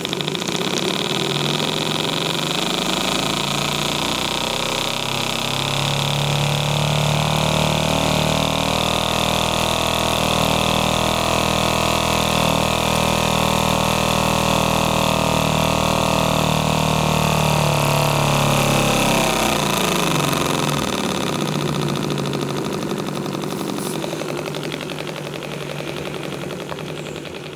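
Hand-built Graham TVR1A twin-cylinder vertical steam engine running on steam, with a steady hiss over its beat. It speeds up over the first few seconds, holds a steady fast run, then slows down about 19 to 22 seconds in.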